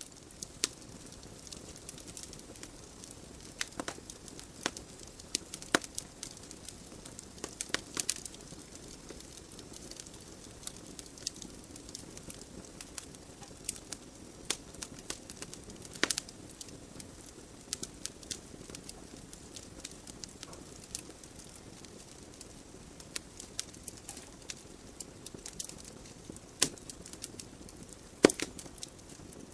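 Wood fire burning in a fireplace: irregular sharp crackles and pops from the logs over a steady soft hiss of the flames, with a louder pop about halfway through and another near the end.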